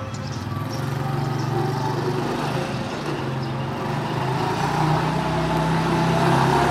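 Homemade trike's 110cc Suzuki Viva single-cylinder motorcycle engine running under way, growing louder as it approaches, with its note shifting with the throttle about two seconds in and again about five seconds in.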